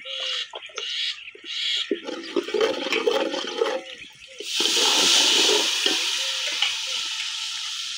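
Water ladled into a pot of hot ghee, fried onions and spices (biryani tadka), bursting into a loud sizzling hiss about halfway through that slowly dies down. Before it, water is scooped with a steel ladle.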